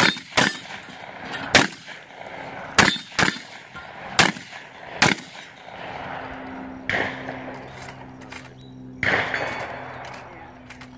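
A shotgun fired quickly, seven sharp shots in about five seconds, then two duller bangs about two seconds apart.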